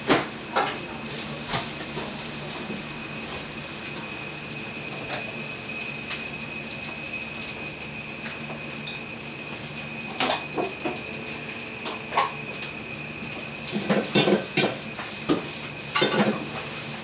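Metal utensil clanking against a pan while fried rice is cooked, over a steady background hiss and hum. The clanks come singly and spaced out at first, then in a quick flurry near the end.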